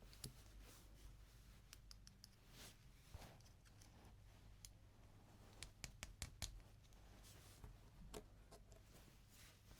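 Faint clicks and light taps of small toys and packaging being handled, with a quick cluster of sharper clicks about six seconds in.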